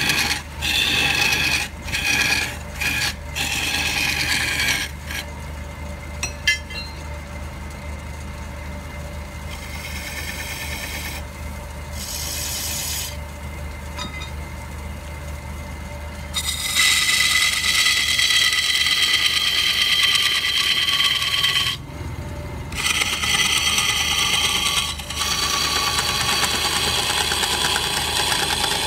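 Turning tool cutting a log blank spinning on a wood lathe: short, broken cuts for the first few seconds, then a quieter stretch of the lathe running with only light touches of the tool, then long, loud scraping cuts with a high-pitched edge from about two-thirds of the way in, broken once briefly.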